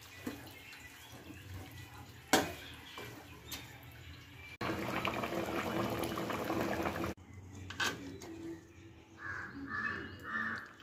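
Soya-chunk and potato gravy being stirred with a metal spoon in a metal pot, with one sharp clank of the spoon on the pot about two seconds in. In the middle the thick gravy bubbles at a boil for a couple of seconds, and near the end a crow caws three times.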